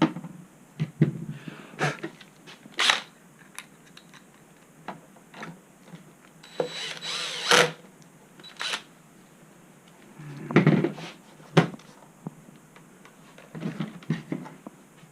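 Screws and tools being handled during reassembly: scattered clicks, taps and knocks of small metal parts, with one longer noisy stretch about seven seconds in.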